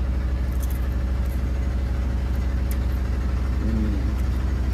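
A steady, low mechanical drone, an even engine-like hum that holds constant throughout.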